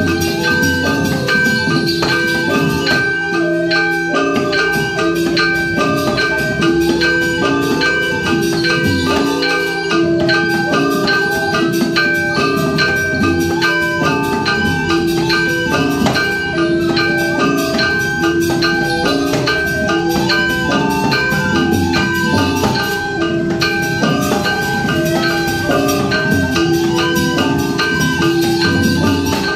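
Balinese gamelan-style band playing: fast, rhythmic ringing of metal mallet instruments over a barrel drum, with a repeating low pulse under it.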